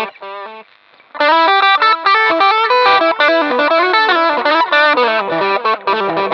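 Electric guitar played through a Shark The Gain Drive Booster pedal on its own as a mild overdrive, gain and tone at the middle: a quick single-note lead line that breaks off briefly about a second in, then runs on in fast notes. The drive is chunky but light, keeping the guitar's own clean tone.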